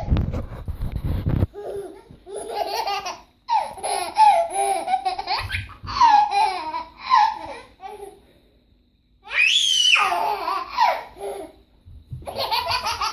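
A baby laughing in repeated fits of belly laughter, with a high squealing laugh near the middle. A low rumble runs under the first second and a half.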